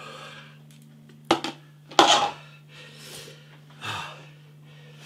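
A man eating ghost pepper noodles, taking a run of sharp, noisy breaths and slurps against the chili heat. The loudest comes about two seconds in.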